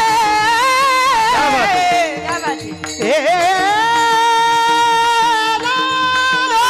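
A woman singing a long wordless devotional melody in Marathi kirtan style over a steady harmonium drone, sliding and ornamenting between notes, dipping briefly about two seconds in, then holding one long steady note.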